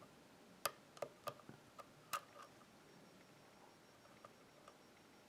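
Faint, sharp clicks of a deep hook pick tapping and lifting pins inside a pin-tumbler lock cylinder, about six in the first two seconds and then a couple of fainter ticks. This is the pick testing each pin for binding under light tension.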